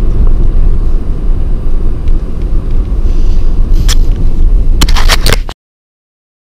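Wind and road noise of a moving vehicle, heard as a steady low rumble. Near the end come a few sharp clicks and knocks of the camera being handled, and then the sound cuts off abruptly about five and a half seconds in.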